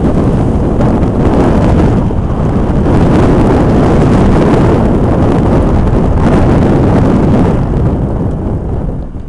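Loud wind buffeting the microphone of a camera on a moving vehicle, mixed with road noise. It is a steady rumbling rush that eases off in the last second as the vehicle slows.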